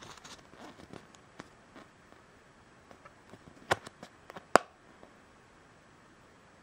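A folded paper insert rustling and clicking as it is pulled out of a plastic gashapon capsule and unfolded, with two sharp snaps a little over halfway through.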